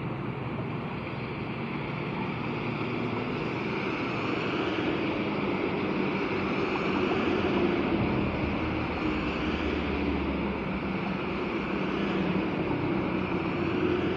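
Muddy rainwater rushing steadily into a curbside culvert drain inlet, a continuous gushing flow.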